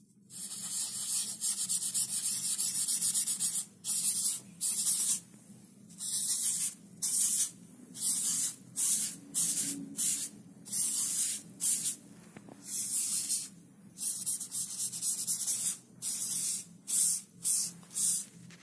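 Dry pastel being rubbed into sketchbook paper by hand: a dry, scratchy hiss, continuous for the first few seconds, then in short separate strokes about one a second.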